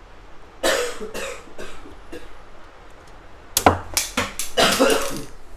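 Knocking and rattling of printer parts and a screwdriver being handled while screws are taken out of the printer's roller assembly, in two bouts: one about half a second in and a longer, louder one from about three and a half seconds.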